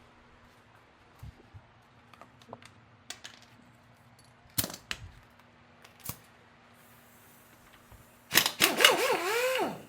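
Scattered sharp metallic clicks and knocks from engine parts and hand tools being handled, then near the end a louder metallic scrape with a wavering, falling tone lasting about a second and a half.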